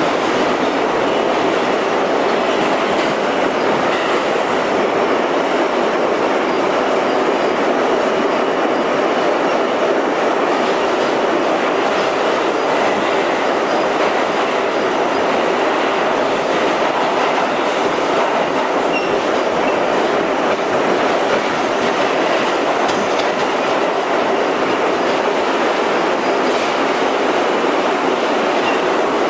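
R32 subway car running at speed, heard from inside the car: a loud, steady rumble of wheels on rail with occasional clicks.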